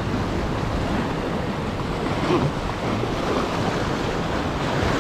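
Sea surf surging and breaking against rocks on a shore in a high swell: a steady rush of churning water.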